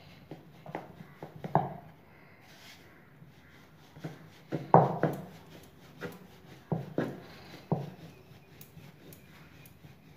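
Wooden rolling pin rolling out thin thepla dough on a round wooden board: a series of irregular wooden knocks and clacks, the loudest a little before halfway, with lighter ticks in between.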